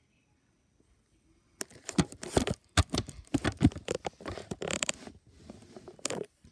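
Fast, heavy typing on a mechanical keyboard: a dense, irregular clatter of key clicks that starts about a second and a half in and stops suddenly near the end.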